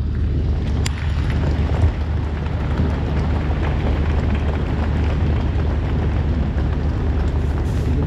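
Large crowd applauding and cheering, a dense steady wash of noise over a continuous low rumble.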